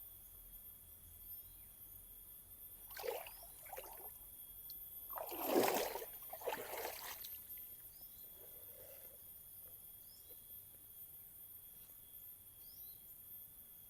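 Steady high-pitched insect drone with faint bird chirps. A few short rustling noises come in the middle, the loudest about halfway through.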